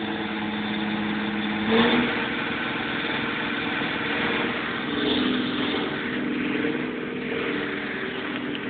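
An engine running steadily, revving up briefly about two seconds in and again more lightly around five seconds.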